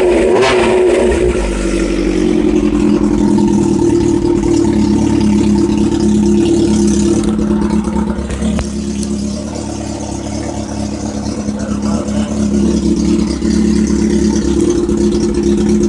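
Kawasaki ZX-7R's inline-four engine running on its first start after a fresh rebuild, at a steady speed with a quieter stretch just past the middle before it picks up again.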